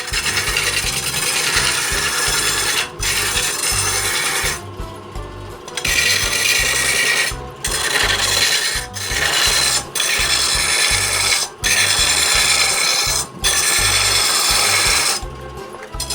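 Turning tool cutting into a wood blank spinning on a lathe: a loud rasping hiss that breaks off briefly every second or two as the tool comes off the wood, over background music with a steady beat.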